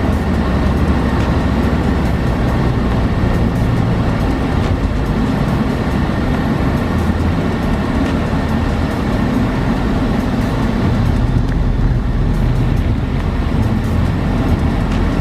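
Motor vehicle driving along a road: steady engine and road noise with a strong low rumble.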